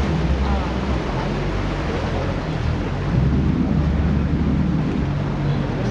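A boat's motor running steadily under way, a low hum under rushing water, with wind buffeting the microphone.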